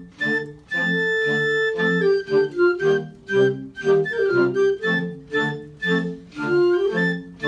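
Woodwind choir led by clarinets playing a march: short detached chords on a steady beat, with one chord held about a second in.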